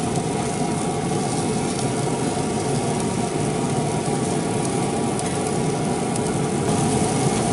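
Steady mechanical hum of a fan or small motor running, with a few held tones over a constant rushing haze.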